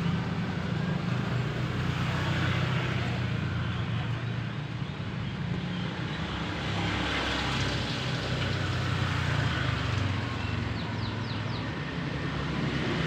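Steady low engine hum of passing vehicles, with an even outdoor hiss over it. A few short, quick chirps come about eleven seconds in.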